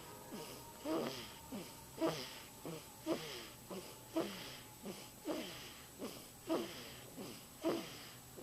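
Snoring with a whistling wheeze: about one breath a second, each with a squeaky tone that falls in pitch, followed by a softer one.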